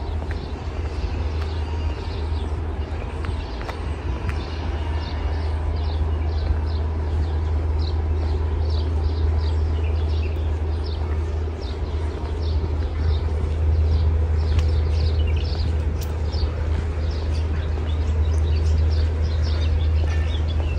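Small birds chirping in quick, repeated short calls, growing busier a few seconds in, over a steady low rumble.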